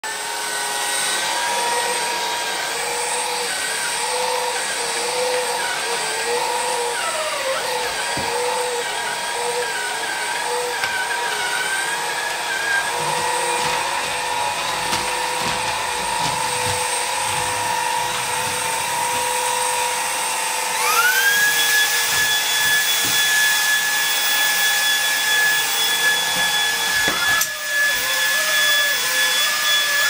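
Shunzao L1 cordless stick vacuum's brushless motor running with a steady whine that wavers slightly as the floor head moves across parquet and rugs. About two-thirds of the way through, the whine jumps sharply higher in pitch and gets louder, typical of the vacuum being switched to a higher suction setting, with a brief knock a few seconds later.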